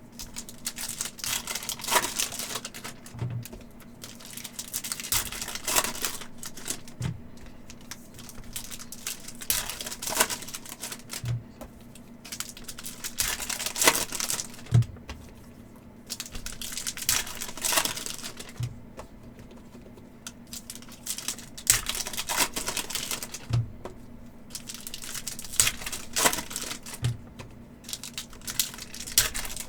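Upper Deck hockey hobby packs being opened by hand: foil wrappers tearing and crinkling, with quick clicks of cards being handled, in repeated bursts every few seconds.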